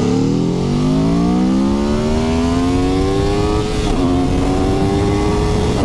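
2021 Aprilia Tuono V4 1100 Factory's V4 engine accelerating hard at full throttle, its pitch climbing steadily. About four seconds in there is a quick upshift, and then it climbs again.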